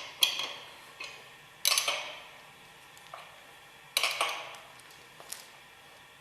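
Metal clinks of a wrench on the hex head screws as the separator hood is bolted tight: four sharp strikes, each ringing briefly, the last one lighter.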